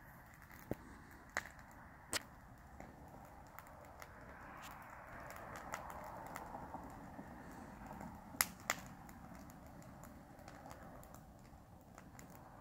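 Wood campfire crackling, with scattered sharp pops and two louder snaps close together about two-thirds of the way through, over a soft steady rush of the flames.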